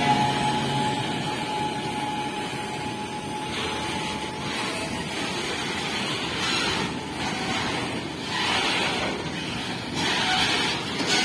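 Indian Railways WAG-9 electric locomotive and a train of tank wagons rolling past at speed, with rushing wheel-on-rail noise. A steady whine fades out about four seconds in, and the noise then swells and eases every couple of seconds as the wagons go by.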